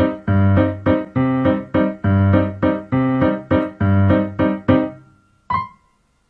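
Background piano music playing a quick, repeated chord pattern that dies away about five seconds in, followed by a brief high ringing note.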